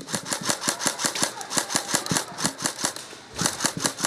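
Airsoft gun firing in a rapid, steady string of sharp cracks, about seven shots a second. The string breaks off briefly about three seconds in, then resumes.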